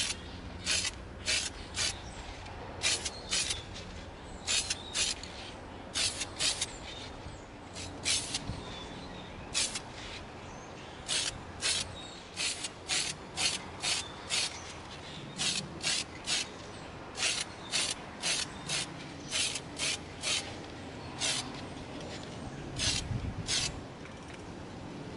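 Rust-Oleum Universal satin bronze aerosol spray paint hissing out in many short bursts, one or two a second, with brief pauses: small parts being dusted with a light coat.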